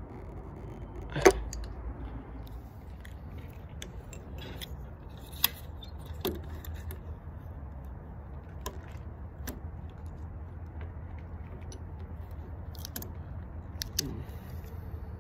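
Scattered metallic clicks and clinks of hand tools: an adjustable wrench working the nut on a bus wiper shaft, the loudest clink about a second in, then a steel hand tool clicking against a wooden workbench. A steady low rumble runs underneath.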